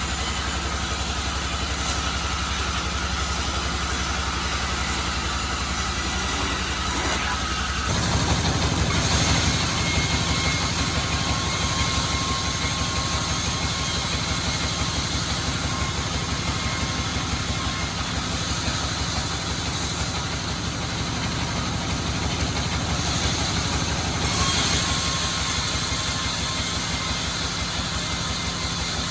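Sawmill engine running steadily with a regular low beat; it gets louder and heavier about eight seconds in.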